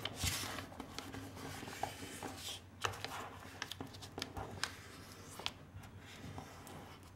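Glossy magazine paper being folded and creased by hand: soft rustling and scattered small crackles and taps as fingers press and slide along the folds of a paper bag.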